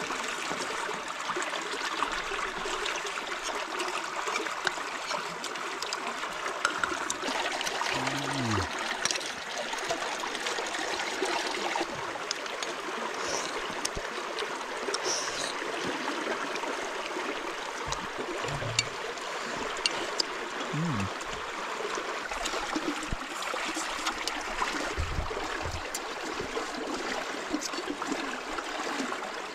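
Water flowing and trickling steadily, with occasional faint clicks.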